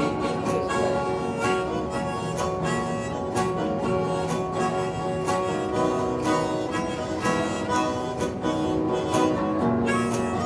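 Live country music in an instrumental break between sung lines, played on a steady beat.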